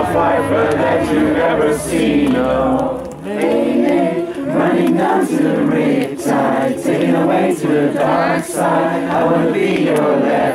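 A group of voices singing together. A steady low backing note drops out about three seconds in, leaving the voices.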